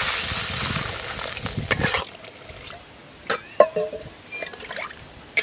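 Water poured from above into a hot aluminium kadai of fried potatoes and spice paste: a steady rushing splash that cuts off about two seconds in. A few light taps follow.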